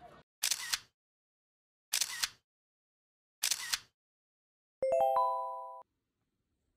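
Three short bursts of hiss about a second and a half apart, then a rising chime of four or five bell-like notes that rings for about a second and cuts off.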